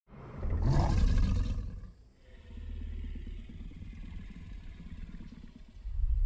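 Tyrannosaurus rex sound effect: a loud roar lasting about a second and a half, then a quieter, low rumbling growl for several seconds.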